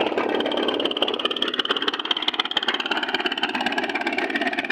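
A boat's engine running steadily, with a fast, even pulsing.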